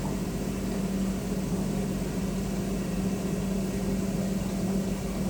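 Planer-blade grinding machine running steadily, its motor giving a constant low hum while the wet grinding wheel works along the blade, grinding out the last chips in the edge.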